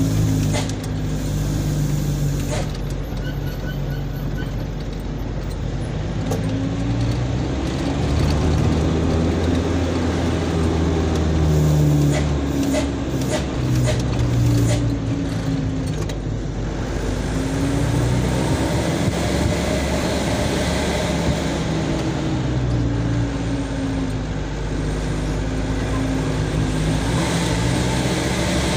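Light truck's engine heard from inside the cab, its pitch rising and falling slowly as the driver works the throttle on a steep, winding road. Short rattles and knocks come through about halfway through.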